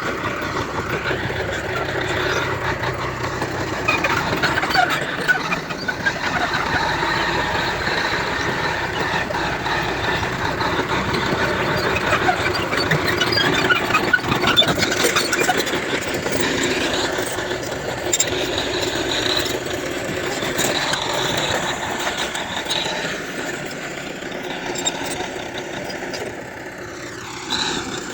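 Heavy earthmoving machinery at work: bulldozer and dump truck diesel engines running steadily.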